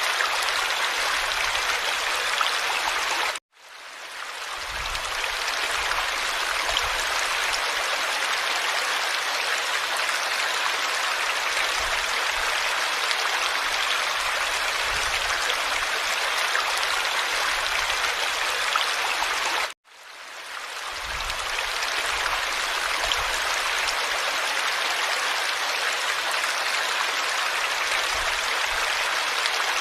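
Steady rush of flowing water, like a stream. Twice, about three seconds in and again about twenty seconds in, it cuts off suddenly and fades back in over a second or two, as a looped recording does.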